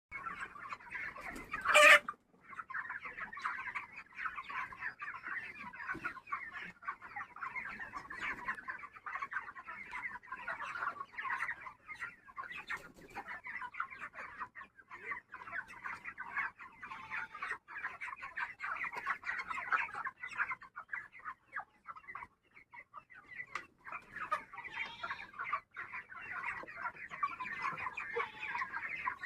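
A large flock of poultry-farm chickens clucking and calling together in a dense, continuous chatter. A single loud sharp sound cuts in about two seconds in, and the flock briefly goes quiet before resuming.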